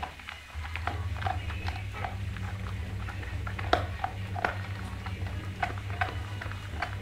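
American Pit Bull Terrier gnawing a bone: an irregular run of clicks and cracks of teeth on bone, with the sharpest crack nearly four seconds in.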